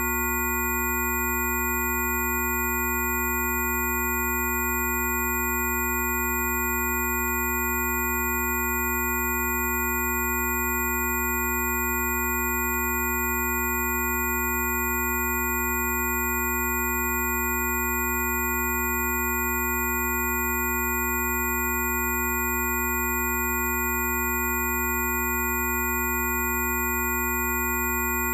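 A steady chord of pure electronic tones, one deep and several higher, held unchanged without a break.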